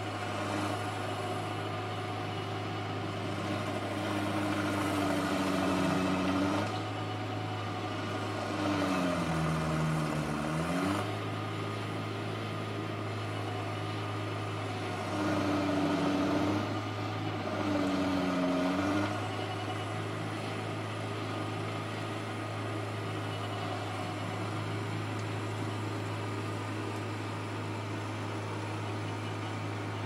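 Stump grinder's engine running steadily, with four louder stretches of a few seconds each in which the pitch bends, as the cutting wheel is swept through the stump and loads the engine.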